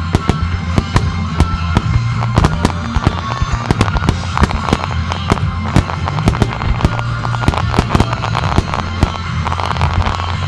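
Rapid string of aerial firework shells bursting, several sharp bangs a second, typical of a starmine barrage, over background music with a steady low bass.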